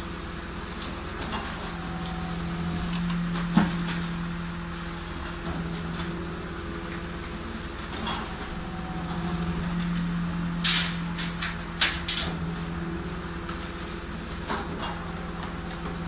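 Rear-loading garbage truck engine idling steadily, with knocks and metallic rattles from bags being thrown into the hopper and wire roll cages being handled. A burst of sharp clatters comes about eleven to twelve seconds in.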